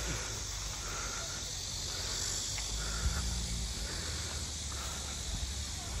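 Outdoor valley ambience: the steady rush of stream water with a low rumble underneath, and a short insect chirp repeating about every two seconds.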